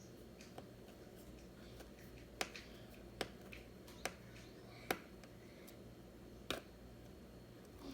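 Faint, scattered sharp clicks, about five of them a second or so apart with fainter ticks between, from a small screwdriver working a very tiny screw in a laptop's screen housing.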